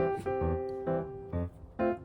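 Background music: a light keyboard tune with piano-like notes struck on a steady beat over bass notes.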